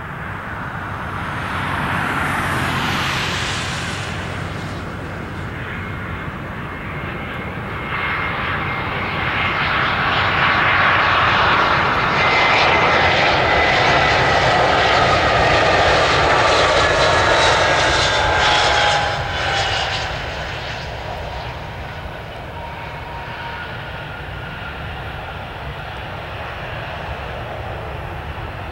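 United Airlines Airbus A320 jet engines on final approach: a steady jet rumble that grows loud as the airliner passes close. Whining tones slide down in pitch as it goes by, about halfway through, then the sound eases off as the plane settles toward the runway.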